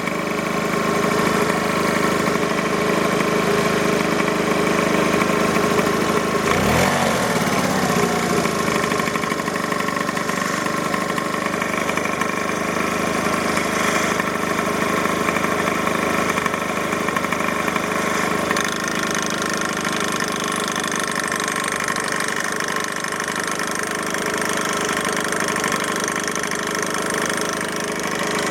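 Yamaha Jog scooter engine idling steadily, with a knock from the right side of the engine whose cause the owner doesn't know. Its pitch shifts briefly about seven seconds in.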